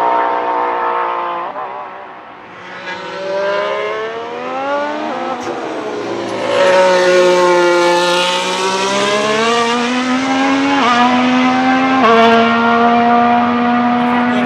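The Racing Bulls VCARB03 Formula 1 car's Red Bull Ford turbo V6 hybrid power unit passing at speed. Its pitch falls away, then climbs through the gears with clear upshifts, and the engine note is loudest in the second half.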